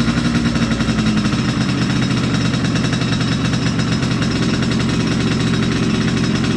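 Yamaha RX-King's single-cylinder two-stroke engine running steadily at a fast idle, with a rapid, even pulsing, while its newly fitted carburettor is being set up.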